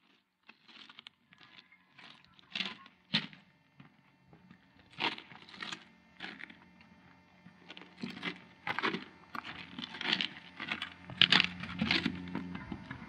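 Footsteps of two people crunching on railway track ballast, irregular steps that grow denser and louder as the walkers come closer.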